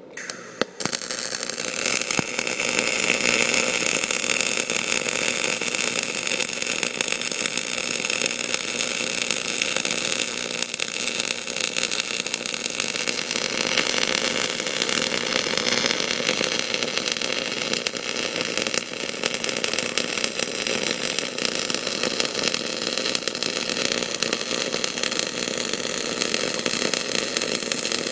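MIG welding arc on aluminum from a small Harbor Freight MIG welder with argon shielding gas: after a brief strike, a steady, dense crackling hiss starts about a second in and runs on without a break, heard close up from inside the welding mask.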